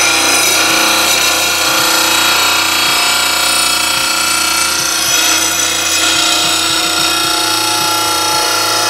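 Bradley blade sharpener's grinding wheel grinding the edge of a steel lawn mower blade: a loud, steady grinding of metal on the abrasive wheel over the motor's hum.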